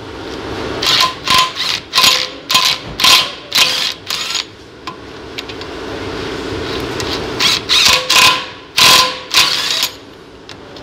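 Pneumatic hand tool on a rusty wheel stud of a bare front hub, triggered in short hissing bursts of about two a second, in two runs with a pause between. A steady low hum sits underneath.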